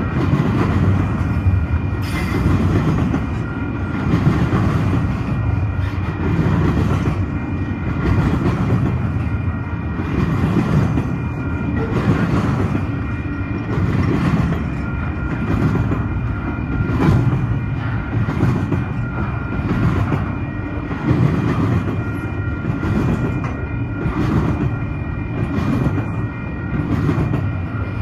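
Freight train of double-stack container well cars rolling past at speed: a steady heavy rumble with regular wheel clacks over rail joints, about one a second.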